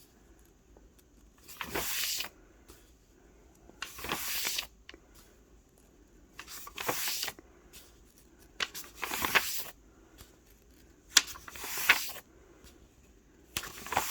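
Pages of a colouring book being turned one after another, a papery swish about every two seconds.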